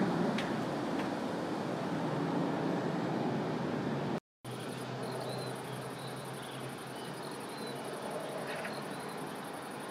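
Jet airliner engines fading away as the aircraft climbs out after takeoff. After a sudden cut, a steadier, quieter jet noise from an Embraer E-Jet regional airliner landing on the runway, with faint high chirps over it.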